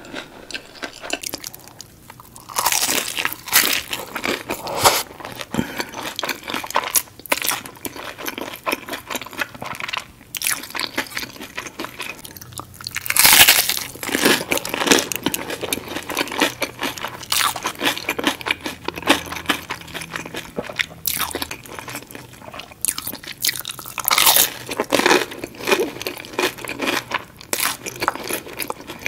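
Close-miked biting and chewing of crispy fried breaded and battered fish: dense crackling crunches, with louder surges of crunching about 2.5, 13 and 24 seconds in as fresh bites are taken.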